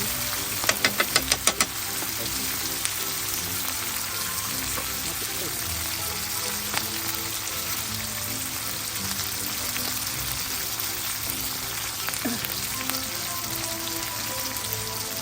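Food sizzling steadily as it fries. About a second in comes a quick run of about seven sharp clicks. Soft music plays underneath.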